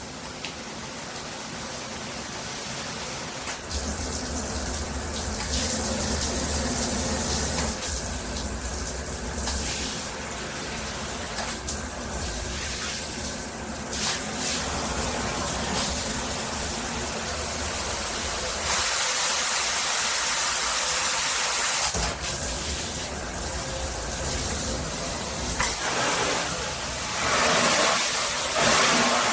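Water spraying from a handheld shower head, a steady rush whose strength and tone shift every few seconds. A low steady hum runs under it from a few seconds in.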